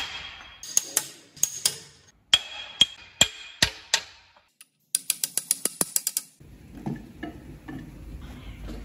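Hammer striking a steel drift block set on a Scania DC16 V8 engine block: a series of sharp, ringing metal blows about every half second. About five seconds in, a quick run of about ten sharp clicks, followed by a low rumble with light knocks.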